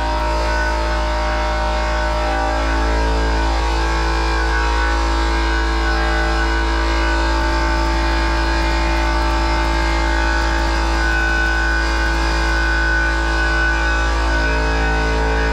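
Background rock music with held guitar chords that change every few seconds.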